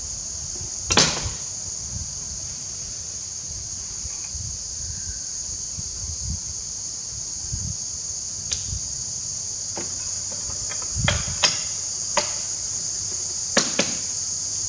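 Sharp metal clicks and knocks of tools and small parts on a CAV rotary injection pump held in a bench vise as it is taken apart: one knock about a second in, then a run of clicks in the last few seconds. A steady high-pitched hiss runs underneath throughout.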